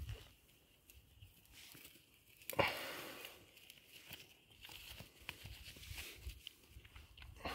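Soft rustling and scuffing, with one sudden louder crackling rasp about two and a half seconds in that fades over half a second. These are handling and rustling noises close to the microphone.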